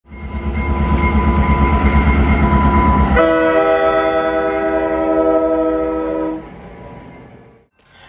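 Diesel locomotive air horn sounding a multi-note chord over the low pulsing rumble of the moving train. About three seconds in the rumble falls away and the horn chord drops to lower notes; the horn stops a little past six seconds and its sound fades out.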